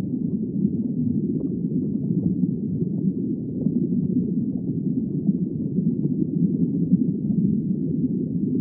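Underwater ambience: a steady, muffled rush and rumble of water, with no calls or pitched sounds in it.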